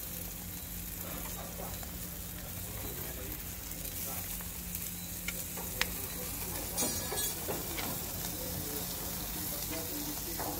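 Steaks topped with garlic butter sizzling steadily on a gas grill's grates, with a few sharp clicks of metal tongs against the grate as the steaks are flipped.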